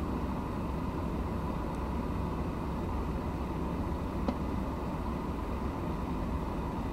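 Steady low outdoor rumble, with one short sharp click about four seconds in.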